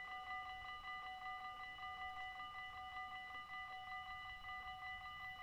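Dutch railway level-crossing warning bell, an electronic bell ringing in rapid, evenly repeated strokes while the barriers lower, signalling that a train is approaching.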